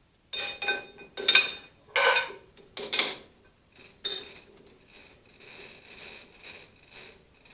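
Pieces of steel bar stock clanking against one another and ringing as they are handled: about six sharp clanks in the first four seconds, then softer rattling.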